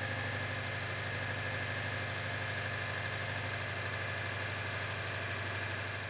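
Honda engine idling steadily, with a slight even pulse in loudness, during a vacuum-gauge check for the tight valve clearance that shows as a bouncing needle at idle.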